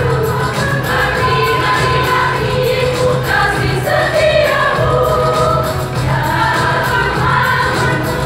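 Choir singing a Christian song together, with a steady low accompaniment underneath the voices.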